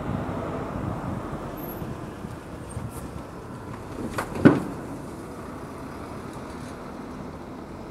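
Steady outdoor background rumble that eases slightly, with one brief sharp sound about four and a half seconds in.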